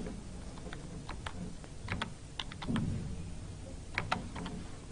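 Computer keyboard being typed on: soft key clicks in short, irregular runs as a word is keyed in.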